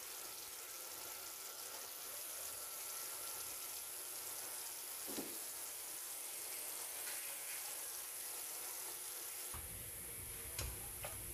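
Pot of pork-rib and vegetable broth at a rolling boil, bubbling with a steady hiss. Near the end a ladle stirs the broth and clinks against the stainless steel pot a couple of times.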